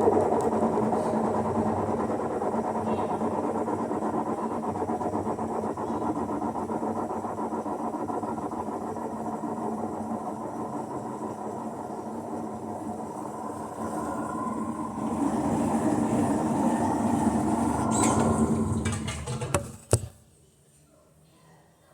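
Electrolux LT09E top-loading washing machine on its spin cycle, running with a loud, steady mechanical noise and hum, which the owner ties to the transmission (câmbio). Near the end the noise dies away and a single click is heard.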